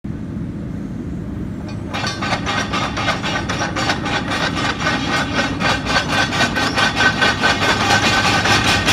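Komatsu PC210 hydraulic excavator running on its diesel engine, a low steady hum that about two seconds in is joined by a fast, even rasping clatter, about six or seven beats a second, growing gradually louder.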